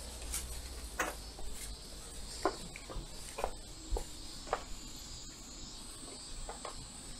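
Insects droning steadily on one high pitch, with scattered light clicks and taps.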